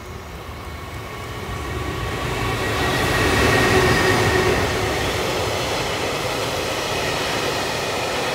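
Electric freight locomotive passing at speed, growing louder to its loudest about three to four seconds in, then a long train of container and tank wagons rolling steadily by on the rails with a faint steady whine.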